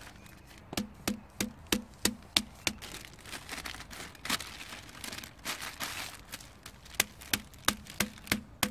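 Wooden mallet pounding steak wrapped in baking paper on a log to flatten and tenderise it: a regular run of knocks about three a second. Midway the knocking pauses while the baking paper crinkles as it is lifted and refolded, then the knocking starts again.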